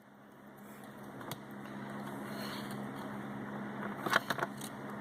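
A few sharp clicks and snaps of small parts being worked loose inside a tablet near its battery: one about a second in and a quick cluster near the end. Under them runs a steady low mechanical hum.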